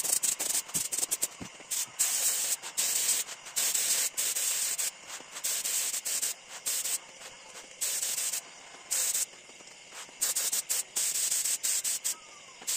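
Air spray gun hissing in many short bursts, each under a second, as the trigger is pulled and released while spraying a wood finish.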